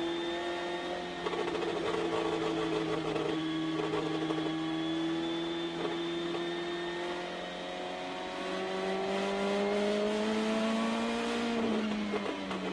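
Indy Lights car's Mazda-AER turbocharged four-cylinder engine at speed, heard from the cockpit over a steady rushing hiss. Its pitch climbs slowly through a long pull, climbs again, then drops sharply near the end.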